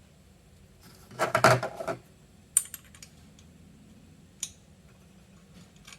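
Small metal engine-mount parts and bolts clattering as they are handled: a burst of rapid clicks and rattles about a second in, lasting nearly a second, then two single sharp clicks.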